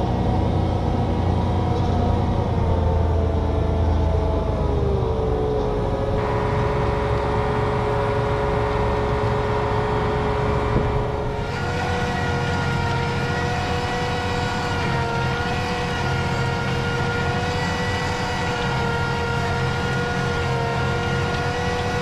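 John Deere 8270R tractor's six-cylinder diesel engine running steadily, its pitch climbing slightly about four to five seconds in. The tone of the sound changes abruptly about six seconds in and again at about eleven and a half seconds.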